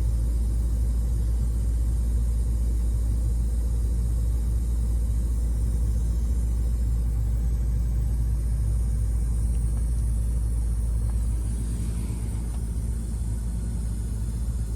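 A car's engine idles with a steady low rumble, under a faint steady high hiss from the car audio system. The hiss is the white noise that the owner blames on a Rockford Fosgate two-way passive crossover.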